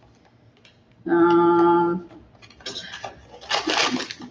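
A woman hums one steady note for about a second, then plastic packaging crinkles and rustles as a small figure box is opened.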